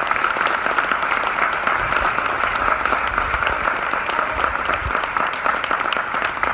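Audience applauding: many people clapping at once, loud and steady.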